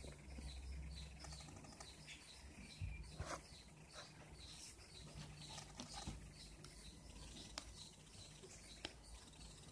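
Near silence: quiet room tone with a faint low hum that stops a little over a second in, a few soft clicks, and a faint high ticking repeating about three times a second.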